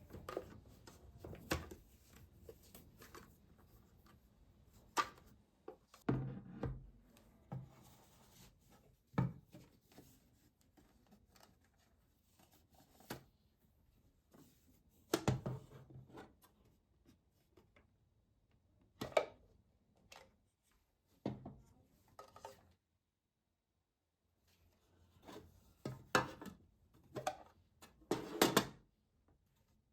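Household handling sounds: scattered short knocks and clatters of objects being picked up and set down, with some rubbing between them.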